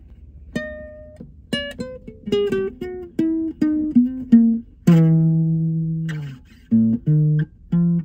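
Nylon-string classical guitar, freshly re-glued where it was coming undone, played fingerstyle: single notes picked a few a second in a slow melody, with one low note left ringing for about a second and a half midway.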